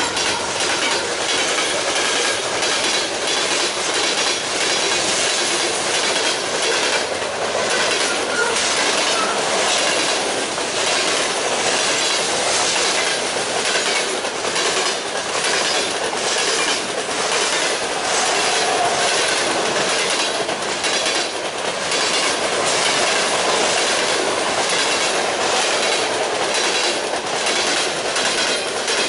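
Freight train of covered hopper cars passing close by, its wheels beating a loud, steady clickety-clack over the joints of jointed rail.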